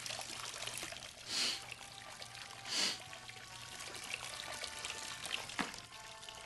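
A steady stream of water pouring and splashing, with two brief louder rushes about a second and a half and about three seconds in.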